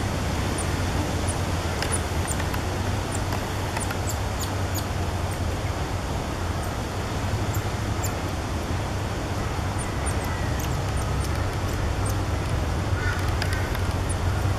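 Cotton-top tamarins giving short, very high-pitched chirps, roughly one or two a second and often in pairs, over a steady low rumble.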